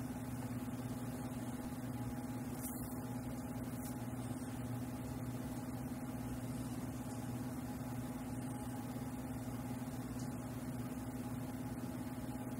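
A steady low hum that does not change, with no other distinct sounds.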